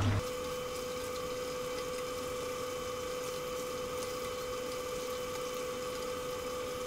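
Chicken wings deep-frying in hot oil in a wok: a steady, even sizzle with a steady hum under it.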